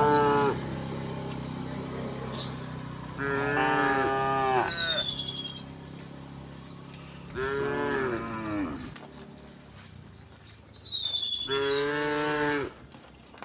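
Cows mooing: a moo ends right at the start, then three more long, drawn-out moos follow a few seconds apart. Short high descending bird whistles come in alongside the moos.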